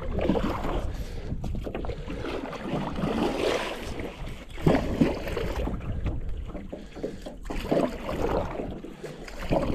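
Canoe paddling: a wooden paddle dipping and pulling through lake water, with a swish and splash on each stroke, a stroke every couple of seconds. Wind rumbles on the microphone underneath.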